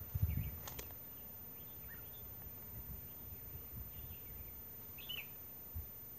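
Faint short bird chirps, scattered and high-pitched, the clearest about five seconds in, over a quiet outdoor background. A brief low rumble comes at the start, and a click follows just under a second in.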